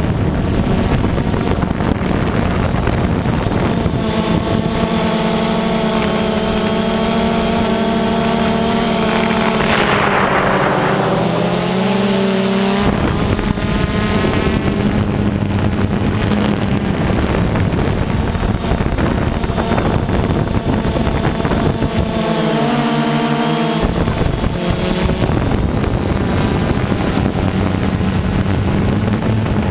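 Multirotor drone's electric motors and propellers humming steadily, the pitch of the hum shifting up and down as it manoeuvres, with a falling glide about ten seconds in.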